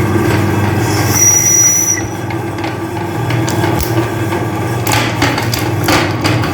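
Meat grinder motor running with a steady hum, a short high whine about a second in, and several sharp cracks near the end as hard lollipop candy is ground.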